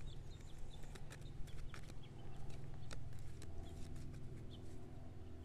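Outdoor ambience: a steady low rumble with faint, brief bird chirps and scattered light clicks.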